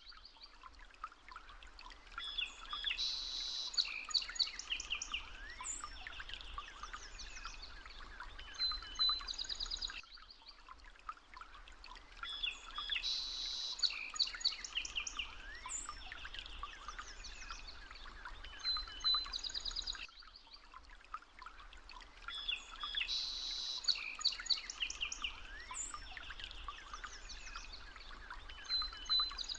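Birds chirping and singing in quick trills and whistles over a faint low hum, a recording that loops exactly every ten seconds.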